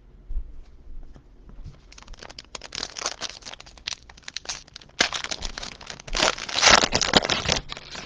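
Foil wrapper of a Prizm trading-card pack being torn open and crinkled, in two crackly spells, the second starting suddenly about five seconds in.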